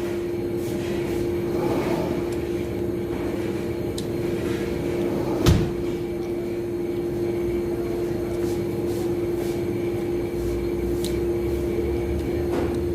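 A steady mechanical hum, with a few faint clicks and a single sharp knock about halfway through.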